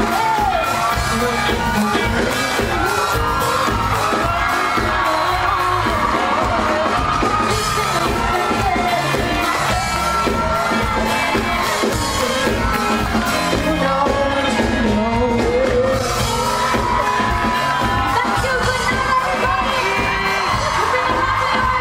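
Live high-school band playing: several singers over a steady drum beat and band accompaniment, with whoops and shouts from the crowd.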